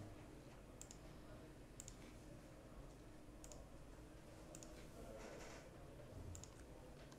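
Faint computer mouse clicks placing tracking markers: about five sharp clicks roughly a second apart, some in quick pairs, over quiet room tone.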